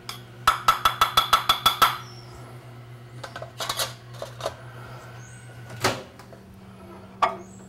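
Two metal ramekins held rim to rim and shaken to coat them in rice flour, clinking together about ten times in quick succession with a ringing tone. After that, a few clanks as the ramekins are set down into an aluminium baking tin, the loudest about six seconds in.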